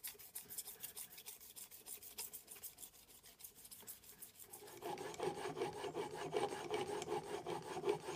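Axminster Rider 102 apron plane blade being honed on its bevel on a sharpening stone: quick, even back-and-forth rubbing strokes, about five a second, getting louder about five seconds in.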